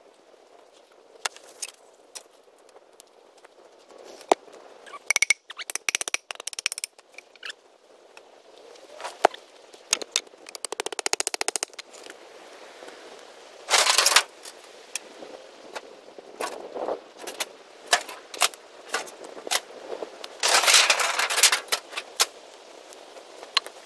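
Old wooden boards knocking and clattering as they are handled and dropped, with a fast rattle midway. Near the end, a large sheet scrapes and rustles as it is dragged through dry fallen leaves. A campfire crackles throughout.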